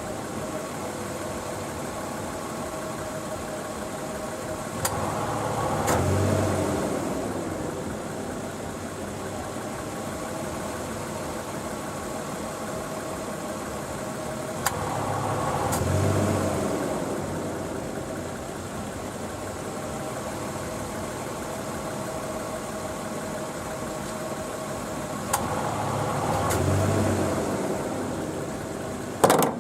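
Nissan Elgrand E51 idling while its air-conditioning compressor cuts in and out about every ten seconds. Each cycle starts with a sharp click, followed by a swell of noise lasting a couple of seconds and a second click. This rapid on-off switching of the compressor, together with the abnormal noise, is the fault the owner is chasing, and a sharp snap comes near the end.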